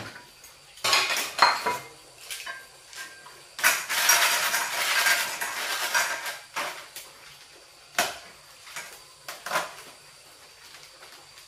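Dishes and cutlery clinking and knocking in a string of separate clatters, with a busier stretch of about two seconds in the middle.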